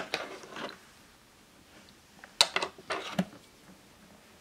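Hard plastic toy tools clicking and clacking against a plastic Play-Doh playset as they are handled: a few clicks at the start, then a quick cluster of sharp clacks about two and a half seconds in.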